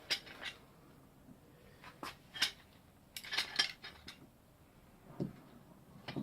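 Hard objects being handled on a workbench: a scattered series of short, light knocks and clinks, most of them in a cluster about three seconds in.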